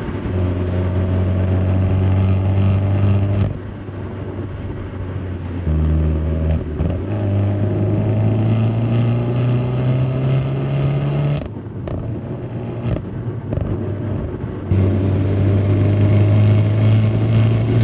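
Peugeot 308 GTi's 1.6-litre turbocharged four-cylinder petrol engine pulling under acceleration inside the cabin, its note rising slowly and dipping briefly twice, about three and a half and eleven and a half seconds in. About fifteen seconds in, the sound switches to outside on the car's body, where the engine is mixed with wind and road rush.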